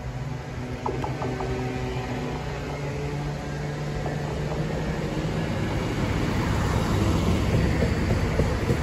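Arriva Siemens Desiro diesel multiple unit approaching and passing: a steady low engine hum with rumbling wheels on the rails, growing louder as it comes close.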